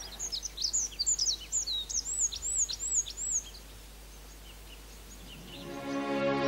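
Tree pipit singing: a quick phrase of high, varied notes that ends in a run of about five repeated arched whistles, then tails off. Soft background music fades in near the end.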